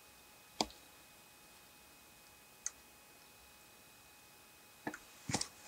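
A few short sharp clicks over a faint hiss: a loud one about half a second in, a faint one near the middle, and a quick cluster near the end.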